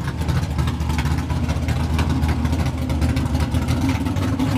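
Loud car engine running steadily, with a rough, rapidly pulsing exhaust note.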